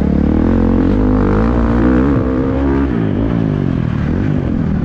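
Single-cylinder four-stroke engine of a 2023 Husqvarna FC450 motocross bike under throttle while riding, its revs climbing and wavering, then dropping off about three seconds in before picking up again.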